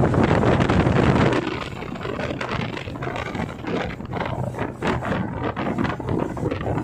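Tow boat's engine running steadily at speed over the rush of its churning wake, with wind buffeting the microphone; loudest in the first second and a half.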